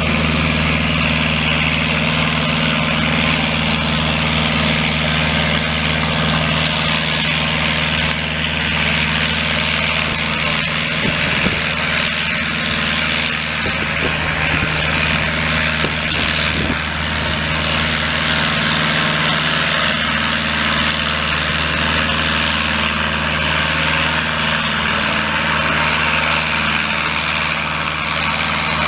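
Massey Ferguson farm tractor's engine running under load at a steady pitch as it drags a weighted pulling sled slowly down the track.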